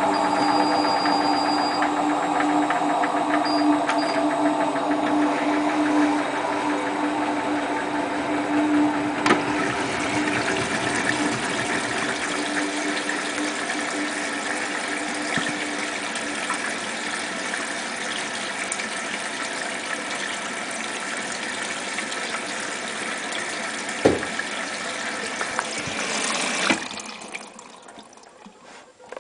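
Hotpoint Ultima WT960 washing machine running with a load of heavy mats: a motor whine falling in pitch over the first few seconds, then a steady rushing with water sounds, which cuts off sharply near the end.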